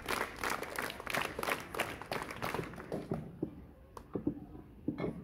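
Audience of students clapping, dying away after about three seconds. Then two short knocks as a microphone on its stand is adjusted.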